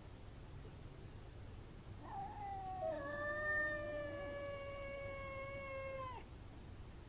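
Cat yowling: one long caterwaul starting about two seconds in, sliding down in pitch and then held steady for about three seconds before stopping abruptly. It is the drawn-out cry of a cat squaring off with another cat in a fight.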